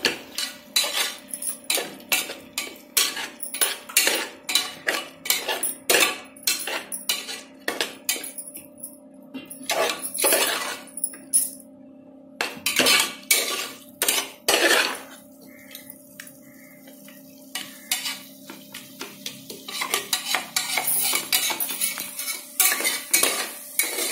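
Metal spatula scraping and clinking against the inside of an aluminium pressure cooker as a thick masala with curd is stirred, in quick repeated strokes with a quieter pause in the middle.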